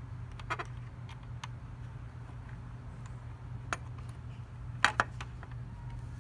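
Small metal clicks and taps as the metal mounting bracket of an Asahi windshield and the mirror stem are handled and fitted onto the scooter's handlebar mount: a short cluster about half a second in, a few single ticks, then two sharper clacks in quick succession near the end. A steady low hum runs underneath.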